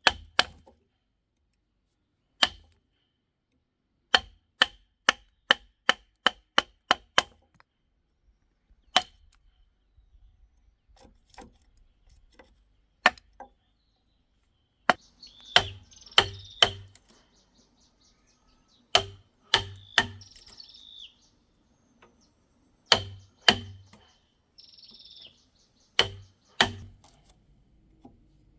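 Repeated sharp blows of a hand tool striking wood. They come in quick runs of several strikes with pauses between, each blow with a short ringing knock.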